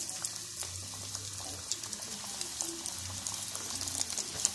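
Egg-and-flour-coated chicken pieces deep-frying in hot oil, a steady sizzle dotted with quick crackling pops.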